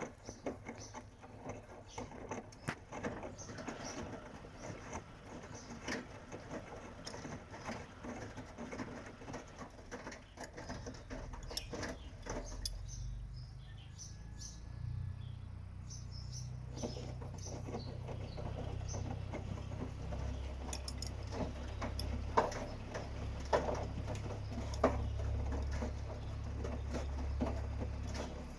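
Washing machine running, with scattered clicks and light rattles; about eleven seconds in, a low motor hum starts and holds steady to the end.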